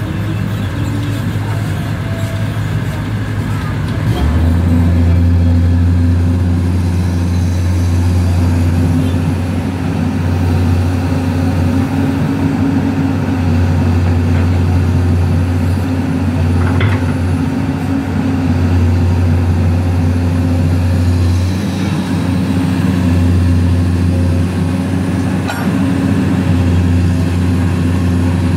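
Komatsu PC200 hydraulic excavator's diesel engine running steadily under working load as it digs and loads soil, a deep, even drone that steps up louder about four seconds in.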